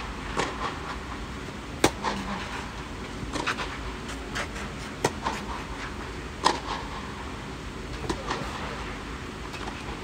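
A tennis rally: a ball struck back and forth by rackets, about six sharp pocks roughly one every one and a half seconds, some much louder than others.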